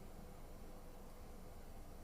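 Quiet room tone: a steady faint hiss with a low hum, no bird calls.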